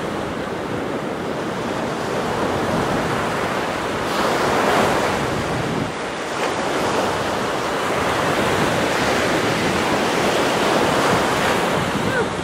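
Surf breaking and washing up a sandy beach, with wind buffeting the microphone. The wash swells louder about four seconds in and again near eleven seconds.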